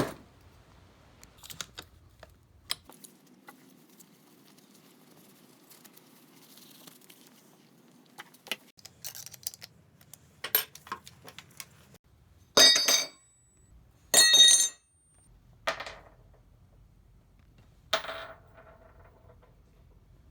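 Scattered clinks and knocks of metal parts and tools being handled, with two louder half-second clanks that ring on about two-thirds of the way through.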